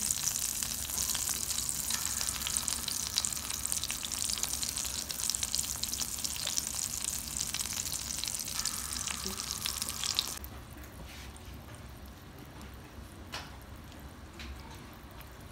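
Melted butter and honey sizzling and crackling in a frying pan. About ten seconds in it drops to a quieter, sparser crackle.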